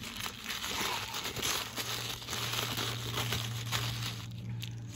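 Tissue paper rustling and crinkling as hands unfold and pull it open, with a low steady hum underneath for a few seconds.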